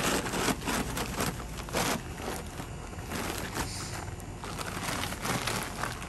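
Bags rustling and crinkling as they are handled, in a quick run of short, uneven noisy bursts.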